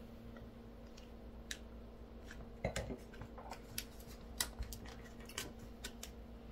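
Faint, scattered clicks and light taps of small objects being handled on a desk, with one slightly fuller knock about three seconds in, over a steady low hum.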